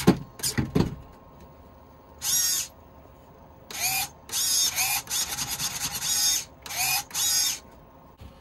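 Suspension servos of a Redcat lowrider RC car whining in short bursts as they raise and lower the chassis. One brief burst comes about two seconds in, then a run of bursts follows from about three and a half to seven and a half seconds. Each burst rises in pitch as it starts.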